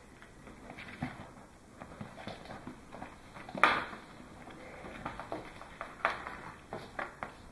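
Kittens scrabbling over a fabric shoulder bag: irregular scratching and rustling of claws on the cloth and straps, with light paw taps, and one louder scrape about three and a half seconds in.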